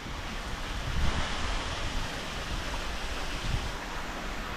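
Wind blowing across the microphone: a steady rushing noise with an uneven low buffeting.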